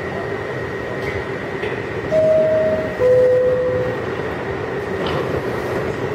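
New York City Subway shuttle train's two-tone door chime, a higher note then a lower one, each about a second long, warning that the doors are closing. It sounds over the steady hum of the stopped train in the station.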